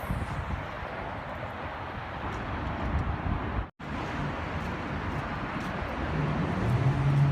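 Outdoor ambience with wind buffeting the microphone and a steady rumble, cut off by a brief dropout about three and a half seconds in. A steady low hum sets in near the end and grows louder.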